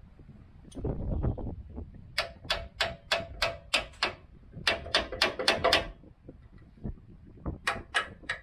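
Quick series of sharp metal-on-metal taps with a faint ring, from work on a truck's front suspension: two runs of about seven strokes at roughly three to four a second, then three more near the end.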